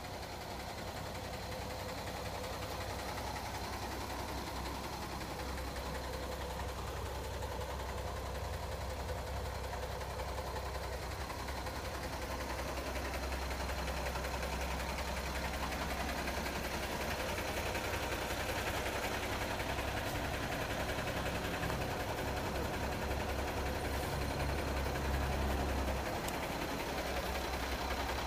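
2008 Kenworth T300 truck's diesel engine idling steadily, a low even rumble that grows slightly louder and eases off near the end.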